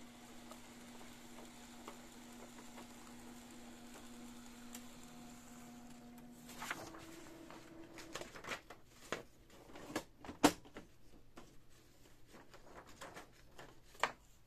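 Canon PIXMA MP-series inkjet printer mechanism running with a steady motor hum that steps up in pitch about six and a half seconds in. This is followed by irregular clicks and knocks, the loudest about ten and a half seconds in.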